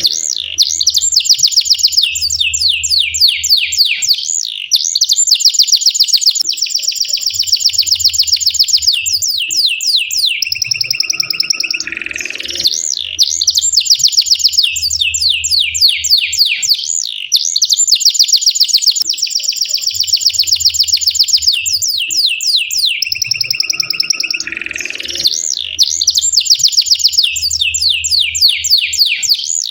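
Domestic canary singing a long, unbroken song of rapid trills and fast rolling notes, the same sequence of phrases coming round again about every twelve seconds.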